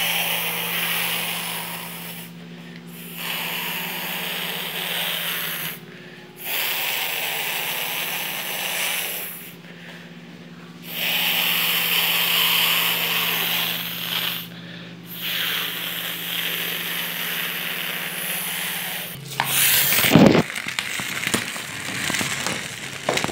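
A whooshing hiss imitating a jet engine for a toy airplane taking off, made in stretches of a few seconds with short pauses between them, like breaths. A low steady hum runs under it, and about twenty seconds in there is a burst of clattering knocks as the toy is handled.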